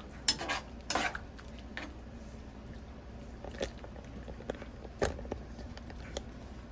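A spoon stirring gravy in a pot: scattered light clicks and knocks of the spoon against the pot, with louder ones in the first second and about five seconds in.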